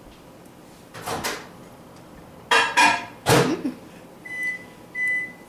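Microwave oven handling: a few loud clacks, like the door and tray being moved and shut, then two short high electronic beeps from the microwave's keypad.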